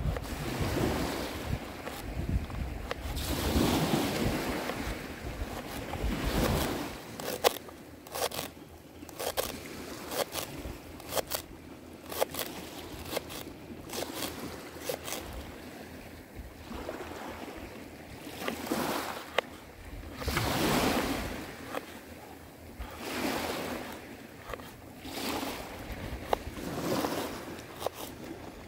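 A small knife chopping leek and then parsnip against a wooden bowl, in runs of short sharp taps on the wood. Behind it, surf swells and fades every few seconds, typical of waves washing over a pebble beach.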